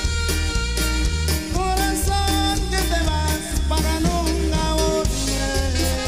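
Upbeat band music with horns over a steady drum and bass beat.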